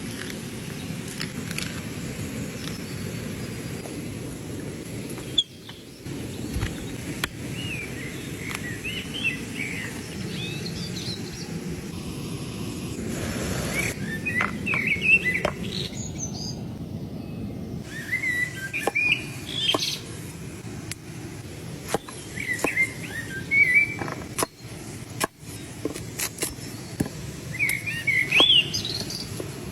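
Small birds chirping in repeated short bursts of quick, high notes over a steady low background noise, with scattered sharp clicks.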